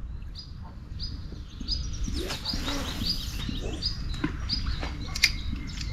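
Small songbirds chirping, short high notes repeating about twice a second over a low steady rumble, with a sharp click about five seconds in.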